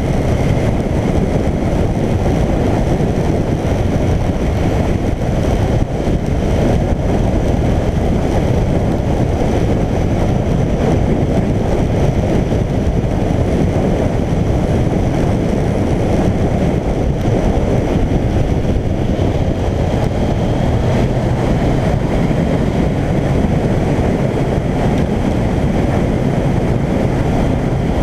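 Suzuki GSX1400 motorcycle cruising at a steady motorway speed, heard from a bike-mounted camera: a loud, even rush of wind on the microphone over the inline-four's engine and road noise.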